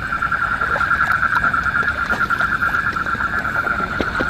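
Dense chorus of frogs calling in a flooded rice paddy at night: a steady, rapidly pulsing trill that never lets up, with a few faint clicks and splashes.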